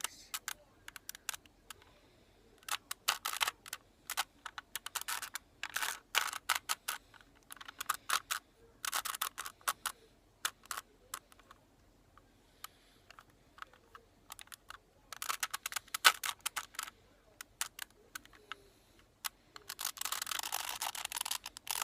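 Plastic Rubik's Cube faces being twisted by hand: bursts of rapid clicking and rattling, a second or two at a time, with pauses between runs of turns.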